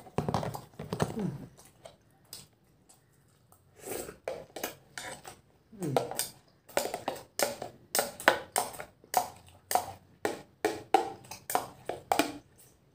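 A spoon scraping and knocking against the inside of a thin plastic food tub as the last of the food is scooped out, in a quick series of short scrapes. Eating noises and a short mouth-full voice near the start.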